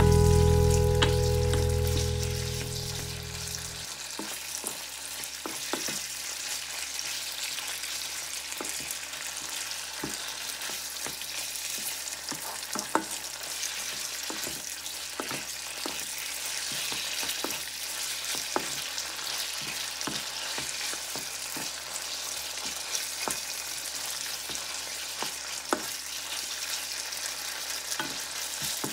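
Beef and onion sizzling in a wok while a wooden spatula stirs them, with frequent light clicks and scrapes of the spatula against the pan. Background music fades out over the first four seconds.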